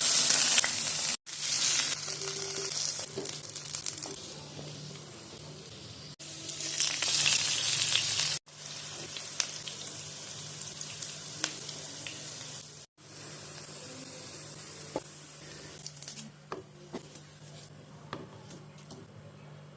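Food sizzling and frying in hot oil in a pan while it is stirred, with small clicks of the utensil against the pan. The hiss is loudest in the first few seconds and again about six to eight seconds in, and breaks off sharply at several cuts.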